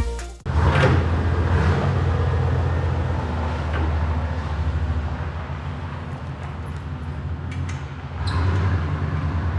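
Electronic music cuts off about half a second in. It gives way to a steady low mechanical hum, like a motor or engine running, with a few faint clicks.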